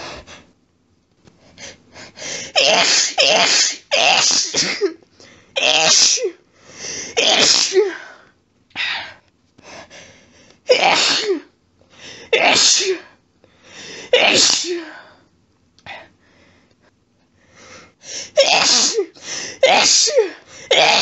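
A woman's allergic sneezing fit: wet sneezes coming in rapid sets, each set several sneezes in quick succession, with short hitching breaths between. One rapid set comes a few seconds in and another near the end, with single sneezes spaced out in between.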